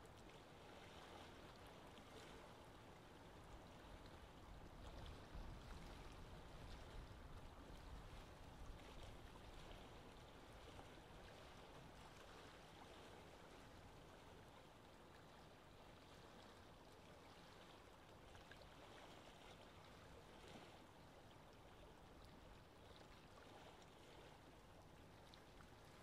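Faint lake ambience: steady wind with soft moving water, swelling slightly with a low rumble of a gust from about four to nine seconds in.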